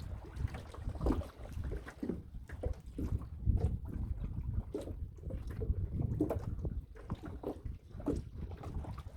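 Water splashing and sloshing around a small boat on a fish pond in short, uneven bursts, over a low wind rumble on the boat-mounted microphone.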